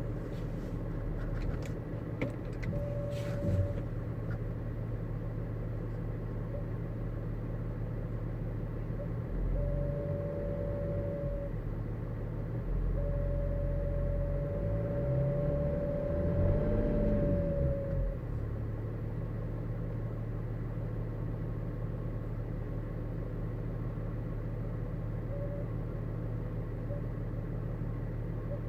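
BMW E39 530d's straight-six diesel engine running, with an intermittent steady whine that switches on and off in stretches of one to five seconds: the strange noise the owner is trying to trace, cause unknown. About halfway through, the engine is briefly revved up and back down, and the whine dips in pitch as it ends.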